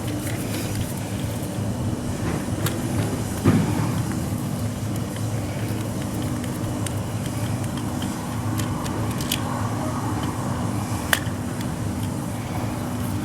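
Steady low mechanical hum, with a few sharp clicks and knocks over it.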